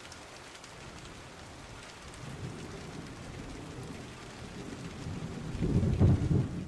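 Steady rain falling, with a low rumble of thunder that swells from about two seconds in and is loudest near the end.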